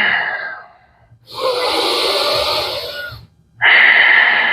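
A person taking slow, deep breaths in and out, loud and airy, each breath about two seconds long with a short pause between.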